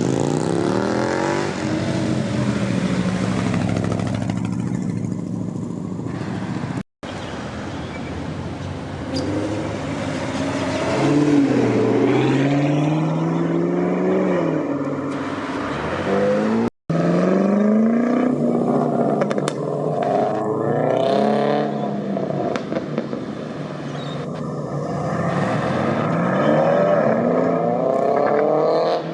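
Cars accelerating away one after another, their engines and exhausts revving up and dropping back at each gear change. The sound breaks off briefly twice where separate clips are joined.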